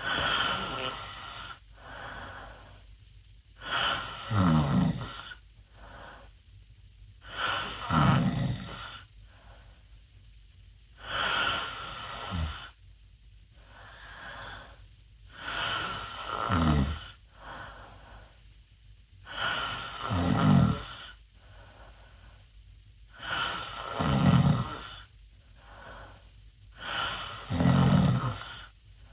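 A 16-year-old boy snoring loudly through an open mouth: eight loud, rattling snores about four seconds apart, each lasting about a second, with softer breaths in between.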